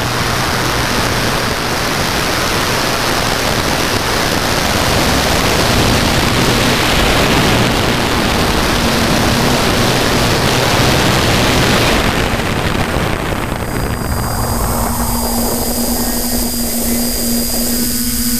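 Hexacopter's electric motors and propellers running in flight, heard close up from the drone itself. A loud rushing noise covers them for most of it and eases about thirteen seconds in, after which their steady whine, with a low hum and high tones, stands out.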